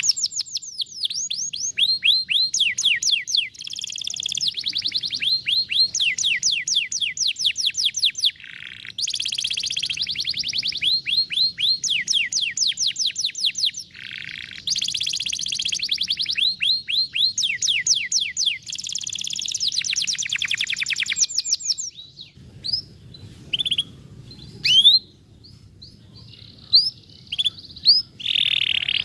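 Domestic canary singing: fast rolling trills of rapidly repeated, downward-sweeping whistled notes, broken by short pauses. Near the end the song thins to scattered single chirps.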